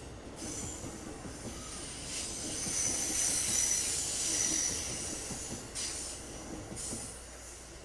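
Passenger train's stainless-steel coaches passing at speed, wheels rumbling on the rails with a thin, high-pitched wheel squeal that swells about halfway through and fades toward the end.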